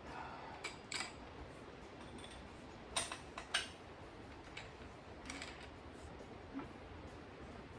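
Scattered light metallic clicks and taps from hand tools working loose a bolt threaded into an LS1 crankshaft nose, with two sharper clicks about three seconds in.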